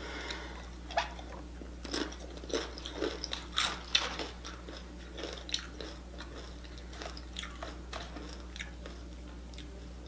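Tortilla chips being bitten and chewed close to the microphone: a run of irregular sharp crunches, thickest in the first half and sparser towards the end.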